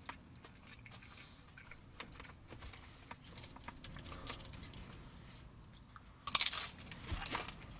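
Quiet wet chewing and small clicks of food being handled, then about six seconds in a loud crunching bite into a crispy fried chicken tender.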